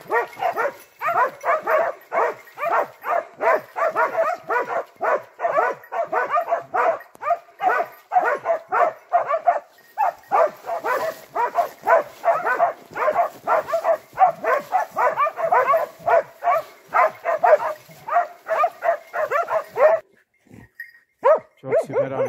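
A pack of hounds barking rapidly and without a break, several dogs at once, baying at a wild boar they have brought to bay. The barking stops suddenly near the end.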